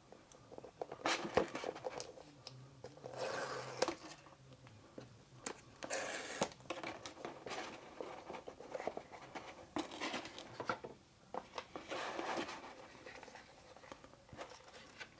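Unboxing handling: irregular rustles and slides of cardboard and paper packaging, with small clicks and taps as the contents are taken out.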